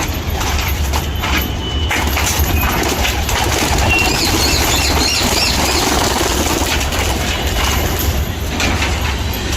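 A flock of pigeons flapping out of their loft as they are released, with a few short bird chirps about four to five seconds in.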